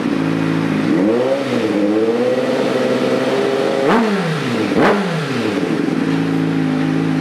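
Suzuki GSX-R1000 inline-four fitted with an Arrow Pro-Race titanium slip-on exhaust, idling and being revved. About a second in, the revs rise and are held for a few seconds; then come two quick throttle blips in a row before it settles back to idle.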